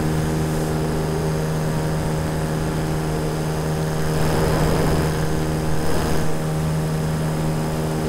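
Electric paramotor motor and propeller running steadily in flight: a constant drone with a thin high whine above it. There is a brief swell of rushing noise about halfway through.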